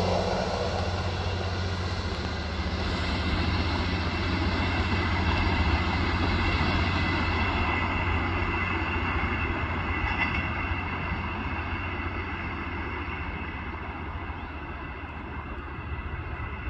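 Trenord ATR 125 diesel railcar running under power as it pulls away down the line, a steady low engine drone with a faint higher whine that slowly fades as the train recedes.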